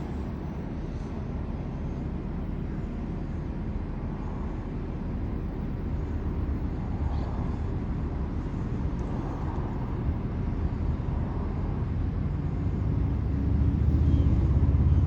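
Low, gusty rumble of wind buffeting the microphone, growing stronger near the end.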